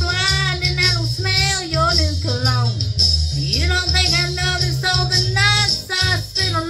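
A woman singing a country song into a handheld microphone over a full band backing track, her melody bending and held with vibrato above a steady bass and drums.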